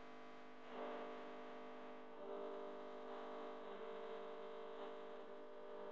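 Soft background music of sustained, held chords, changing about a second in and again about two seconds in.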